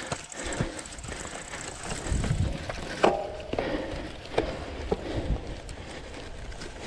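Cyclocross bike ridden over rough grass: tyre rumble with scattered knocks and rattles from the bike over the bumps.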